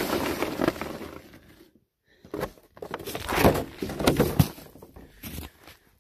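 Steady rushing noise that fades and breaks off about two seconds in, then irregular crunching steps on packed, icy snow with a few heavier thumps.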